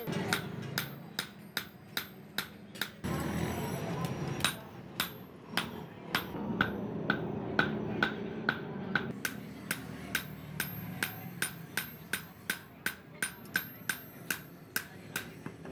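Hand hammer forging a red-hot knife blade on an anvil: a steady run of ringing metal-on-metal blows, about two to three a second, with a short pause about three seconds in.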